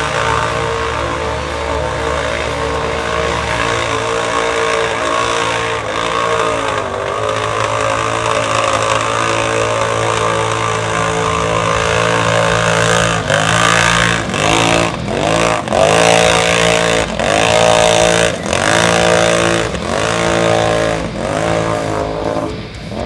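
ATV engine revving hard under load in deep mud. In the second half its pitch repeatedly sags and climbs again, about once a second.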